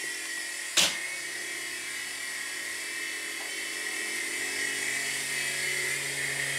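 OPAL RC mini helicopter's small electric motors and rotors whining steadily in flight, getting slightly louder, with one sharp click about a second in.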